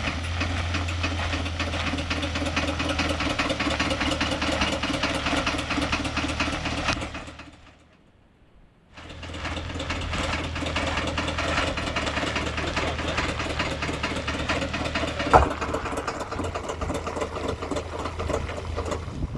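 Ford Ranger running with a rapid, even mechanical clicking and knocking from the driveline while accelerating through a turn with four-wheel drive engaged. This is a 4x4-only driveline fault; the front axle boots are intact. The sound breaks off briefly about eight seconds in, and there is one sharp knock a little past fifteen seconds.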